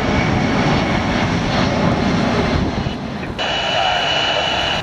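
Jet airliner engine noise at an airport, a loud steady rush. About three and a half seconds in, a handheld air-traffic-control radio scanner opens on an unmodulated transmission: a hiss with a steady high whistle.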